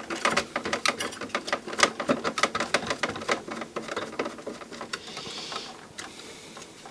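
A hand screwdriver turning out a screw from the receiver's heat sink and chassis: a quick run of small metallic clicks, about five a second, that thins out after about four seconds.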